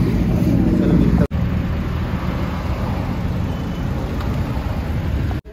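Steady rumble of a moving road vehicle, engine and road noise, broken by a brief dropout just over a second in.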